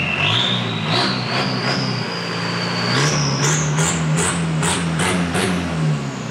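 Diesel pickup engine fitted with an F5 turbo, revving, with a high turbo whistle that rises in pitch as the revs climb. In the second half come about six sharp pops or chirps in quick succession, and the whistle jumps higher.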